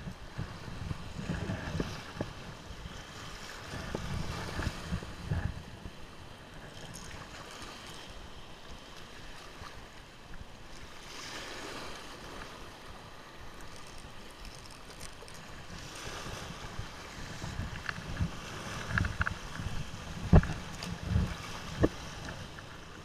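Wind buffeting the microphone over the wash of surf breaking on rocks, gusting up and down. A few sharp knocks stand out near the end.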